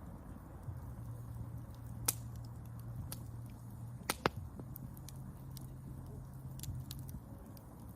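Wood fire crackling, with sharp pops about two seconds in and twice in quick succession about four seconds in, over a low steady rumble.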